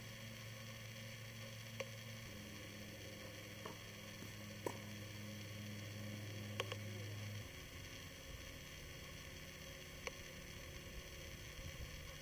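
Faint, sharp pocks of tennis balls being struck by rackets during a doubles rally, about five hits a second or two apart, over a steady low hum that shifts in pitch twice.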